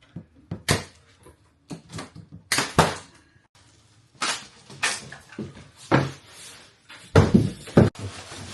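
A shipping box being opened and handled: a run of short scrapes, rustles and knocks, the loudest near the end.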